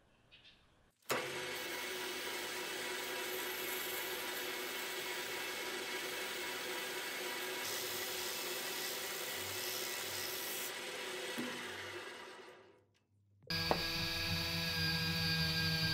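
Metal lathe running, spinning a steel drill-press handle ball while it is sanded with abrasive cloth. It starts about a second in as a steady whirr with a few held tones and fades out shortly before the end. Near the end a different steady sound with several held tones begins.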